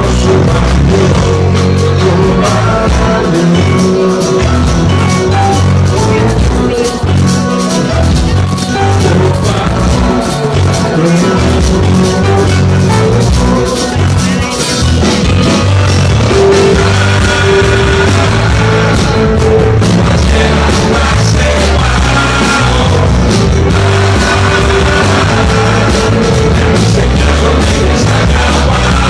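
Live band playing loudly: electric and acoustic guitars over drums.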